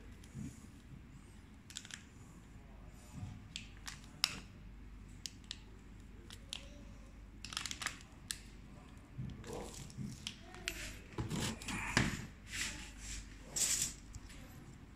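Irregular rustling, scraping and sharp clicks of a handheld phone being handled right at its microphone. The noises grow busier in the second half.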